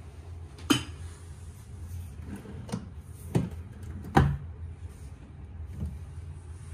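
Several sharp knocks and clicks at irregular intervals, the loudest a little after four seconds in, over a steady low hum.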